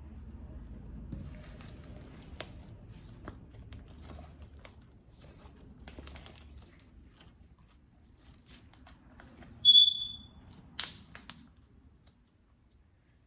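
Stretchy glue-and-Vaseline slime being handled, with scattered small clicks and crackles. About ten seconds in there is one short, high whistle-like tone, the loudest sound, followed by two sharp clicks.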